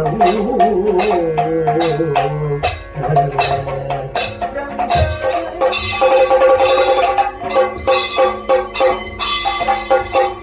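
Kathakali accompaniment music: a voice sings with a wavering pitch over a low drone, punctuated by many sharp percussion strikes.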